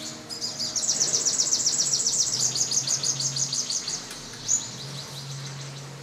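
A small bird's fast trill of high, evenly repeated chirps lasting about three and a half seconds, then a single short chirp.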